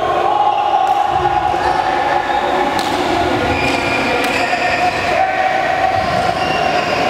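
Badminton racket strikes on a shuttlecock, a few sharp hits over a rally, heard against a loud steady drone of held tones in a large reverberant sports hall.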